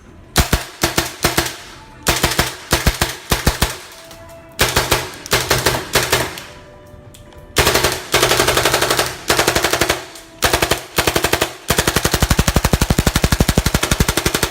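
Tippmann M4 airsoft rifle on an HPA high-flow air tank firing full-auto bursts, its built-in blowback cycling with each shot. Several short bursts come first, then longer strings, the longest lasting about three seconds near the end.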